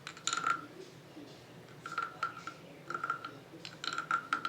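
Wooden frog rasp played with its stick: the stick is scraped along the ridged back in short strokes, giving four croaking rasps about a second apart.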